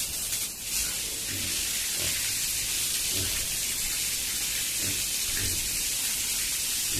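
Pigs grunting: about six short, low grunts spread across a few seconds, over a steady hiss.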